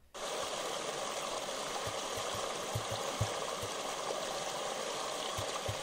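Small brook cascade: water rushing steadily over and around rocks. Soft, irregular low thumps come in from about two seconds in.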